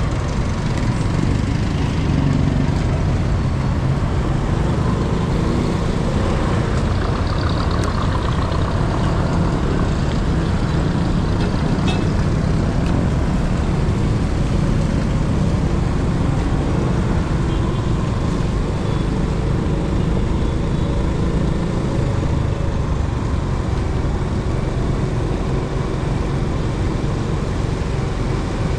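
Steady noise of a motor vehicle being ridden along city streets, its engine running without a break.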